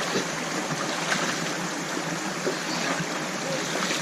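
River water running steadily, with a few faint brief knocks or splashes about a second in and again midway.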